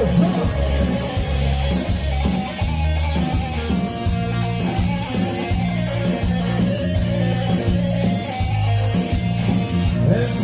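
Instrumental band music with a plucked string lead over steady bass notes and a regular beat.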